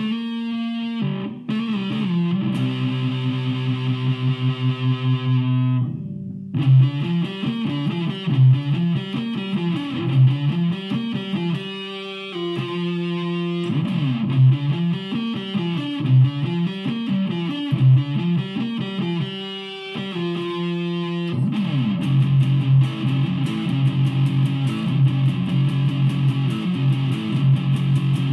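Electric guitar played with distortion. Held chords come first, then a short break and a riff of quickly moving notes, and from about three-quarters of the way in fast, steady picking.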